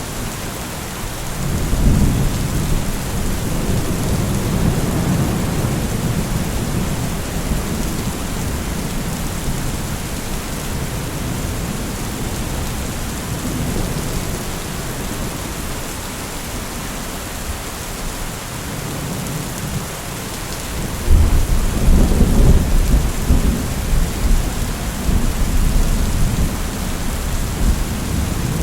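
Thunderstorm ambience: steady heavy rain, with rolls of deep thunder, one about two seconds in and a louder one breaking about 21 seconds in and rumbling on to the end.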